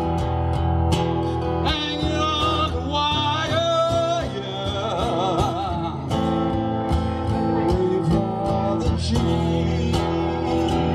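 Live acoustic guitar strummed through a PA, with a man singing a held, wavering vocal line from about two to six seconds in.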